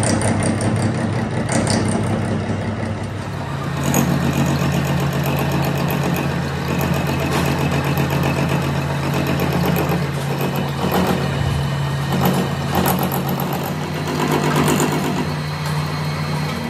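Metal lathe running under power, a steady motor and gearbox hum with scattered ticks and scraping from the tool cutting the spinning steel workpiece. The hum shifts slightly about four seconds in.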